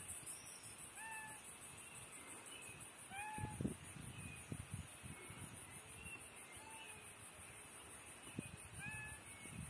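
Short, meow-like calls repeat every second or two over a steady, fast-pulsing insect buzz high in pitch. Soft footsteps crunch on a dirt road at intervals.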